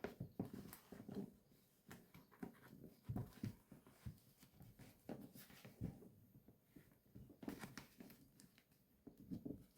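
Faint handling sounds: soft rustles and light taps, scattered and irregular, as small doll boots are worked onto a doll's feet over its trousers.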